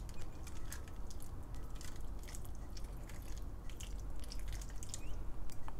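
Bouillon broth poured from a glass measuring cup, trickling and dripping onto roasted potatoes in a foil-lined pan, with small scattered ticks.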